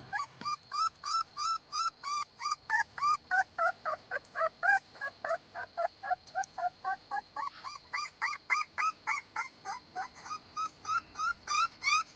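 A bird calling in a long, even run of short notes, about four a second, each note bending up and down in pitch.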